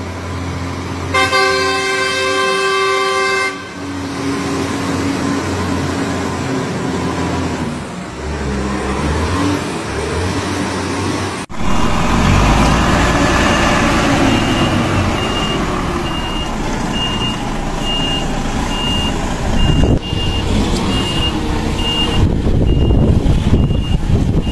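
A truck horn sounds for about two seconds over the diesel engine running in the cab. Later a DAF tractor unit's engine runs as it reverses, its reversing beeper sounding a little over once a second.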